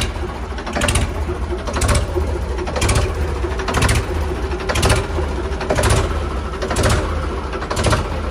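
Restored Ford 3600 tractor engine running, a steady low rumble with a sharp clattering pulse about once a second.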